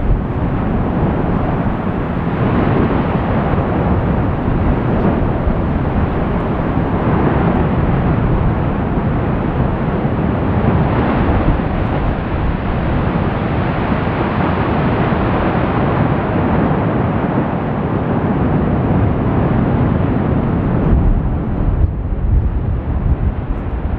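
Fagradalsfjall volcano's lava fountain erupting, a loud, steady, deep rushing noise of gas and lava jetting from the crater vent. It is one of the forceful bursts of the eruption's geyser-like cycle.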